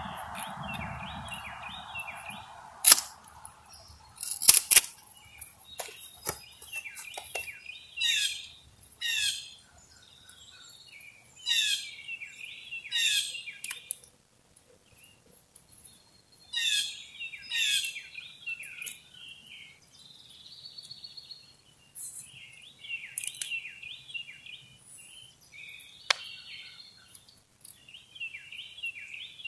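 Wild birds singing, with repeated loud down-slurred chirps and twittering. A few sharp clicks and snaps come from electric fence wire being handled and worked with a hand tool at a post, the loudest two a few seconds in.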